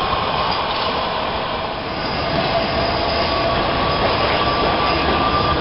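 Manchester Metrolink M5000 tram (Bombardier Flexity Swift) running on street track as it approaches: a steady rolling noise, with a thin whine coming in about halfway through.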